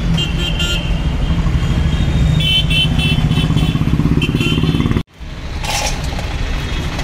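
Street traffic noise led by a motorcycle engine running close by, a steady low rumble. The sound cuts out suddenly about five seconds in and comes back a moment later.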